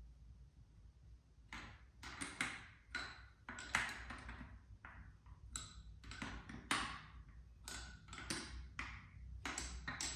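Irregular metallic clinks and taps, some with a short ring: wheel hardware and tools being handled as the wheel is fitted to its hub before torquing.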